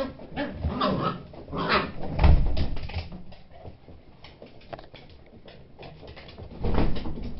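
Beagle puppies making short, high calls over the first two seconds, with a heavy thump about two seconds in and another knock near the end.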